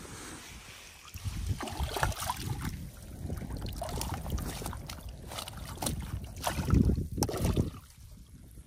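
Wind buffeting the microphone in low, gusty rumbles, with scattered knocks and rustles.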